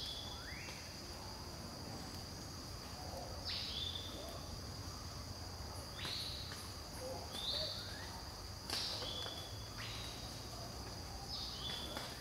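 Forest ambience: a steady high insect drone, with a repeated call that drops quickly in pitch and ends on a short held note, coming every one and a half to three seconds.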